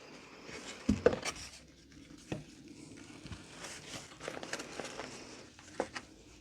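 Handling noise from working thick rope cord onto a wooden letter with a hot glue gun: light rustling with a few scattered knocks and clicks on the table, the sharpest about a second in.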